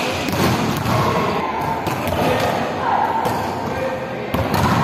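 Volleyballs being hit and thudding onto the court several times in a large indoor sports hall, with players' voices calling out between the hits.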